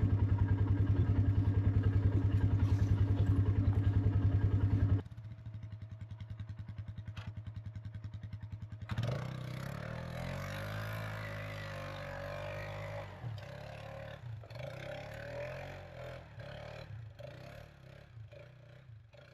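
Four-wheeler (ATV) engine running at a steady idle, dropping abruptly to a quieter idle about five seconds in. About nine seconds in it is revved and ridden off, its pitch rising and falling as it fades away.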